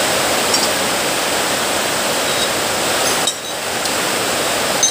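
A steady rushing noise with a brief dip about three seconds in, and a few faint clinks of rusty iron bars being laid one against another on a concrete floor.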